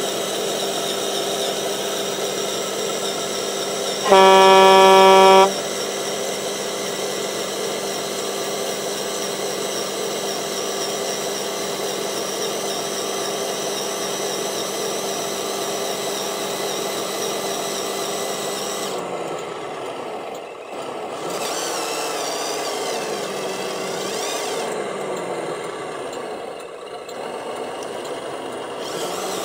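RC model truck's electric drive motor and gearbox whining steadily as it crawls through mud, with a loud truck horn blast lasting about a second and a half about four seconds in. Later the whine wavers up and down as the motor speed changes.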